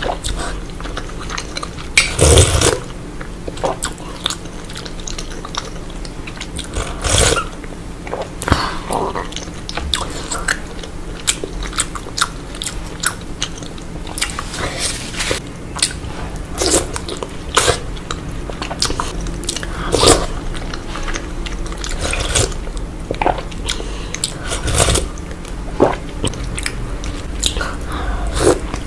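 Close-miked eating: chewing and wet mouth smacks of soft, syrupy Indian sweets, with irregular sharp clicks and smacks, the loudest about two, seven and twenty seconds in.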